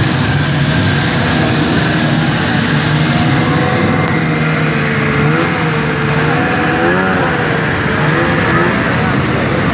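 Several vintage snowmobiles running as the sleds pull away one after another: a steady engine drone, with engine pitch rising and falling from about four seconds in as throttles open and close.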